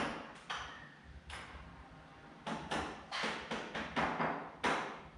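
A run of about ten sharp knocks on wood, a few scattered at first, then coming quickly and unevenly, several a second, from about two and a half seconds in.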